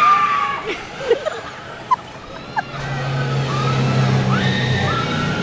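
Riders on a spinning amusement-park wheel ride screaming: several long overlapping screams at the start and again near the end, with a few short yelps between. Under them, a steady low machine hum from the ride starts about three seconds in.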